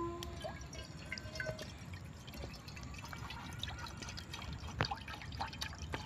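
Water from a plastic bottle dripping and trickling, with scattered small sharp taps and clicks.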